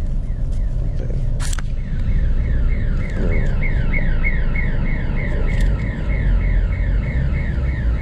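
Steady low rumble of a vehicle running. About two seconds in, an electronic alarm starts up: a fast warble of falling chirps, nearly four a second, repeating over a held high tone.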